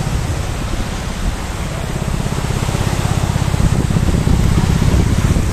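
Small waves breaking and washing in over shallow water at the shoreline, a continuous rushing hiss. A heavy, fluttering low rumble sits under it, typical of wind buffeting a phone microphone.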